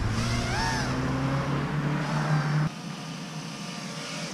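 FPV quadcopter's brushless motors running, the pitch rising and falling with the throttle, then cutting off suddenly about two-thirds of the way through.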